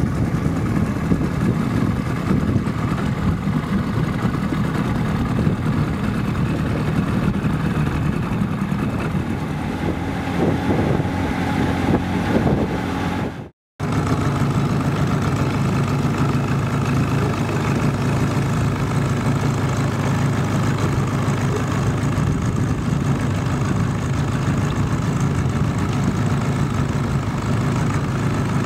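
Boat motor running steadily at low speed. It cuts out for a moment about halfway through, then carries on the same.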